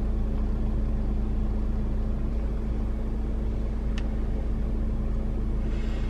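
Steady low hum of a car idling, heard inside the cabin, with one faint click about four seconds in.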